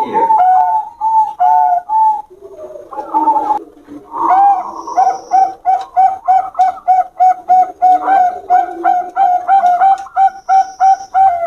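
Zebra doves (perkutut) cooing. After a few scattered notes and a lower, rougher stretch, the call settles about four seconds in into a fast run of short repeated notes, about three a second.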